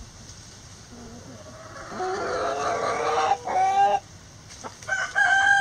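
Backyard chickens calling. A long drawn-out pitched call begins about two seconds in and breaks into quick pulses at its end, and a second long call starts near the end.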